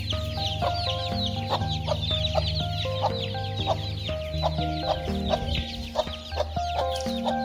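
A brood of baby chicks peeping continuously, many short high peeps overlapping, with background music underneath.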